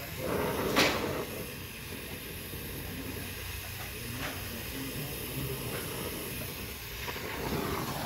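Oxy-acetylene torch flame hissing steadily against a copper refrigerant line joint during brazing, with a sharp click about a second in. Near the end the hiss swells as the wet rag around the hot copper boils off its water as steam.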